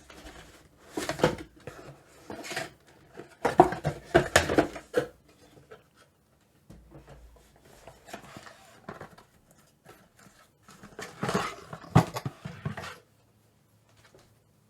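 Packaging being handled during an unboxing: rustling and crinkling with a few knocks, in three bursts with short pauses between, as the power adapter is taken out of the box.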